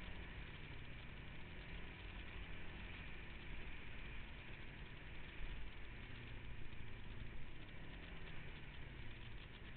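Off-road vehicle engine running at low, fairly steady revs, its pitch shifting slightly a few times, over a steady rushing noise.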